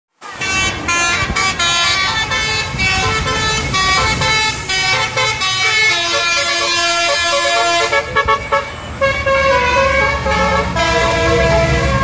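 Basuri multi-tone 'telolet' horns on tour buses playing quick melodies of stepped notes, the tune changing about eight seconds in. A bus engine runs underneath, heavier in the last few seconds.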